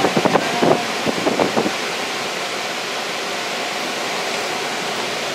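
Hurricane-force wind with surf, a loud steady rushing noise. A few short irregular bursts come in the first second and a half.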